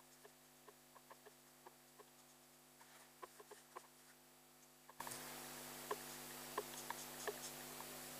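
Faint, irregular clicks and scratches of a Copic Ciao alcohol marker's nib stroking across paper, over a steady low hum. About five seconds in, the background hiss steps up louder.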